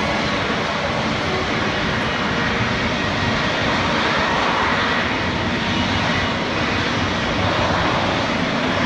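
F-35B Lightning II in a jet-borne hover, its F135 engine and shaft-driven lift fan giving a loud, steady jet rush with a faint high whine.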